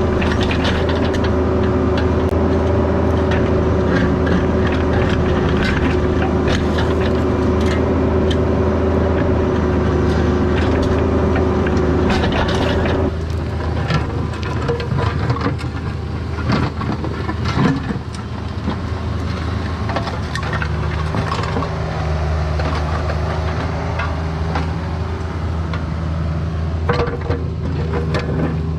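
CAT 304 mini excavator's diesel engine running steadily under load, with a steady higher whine over the low engine hum and scattered clinks and knocks. About halfway through the whine stops and the engine note eases.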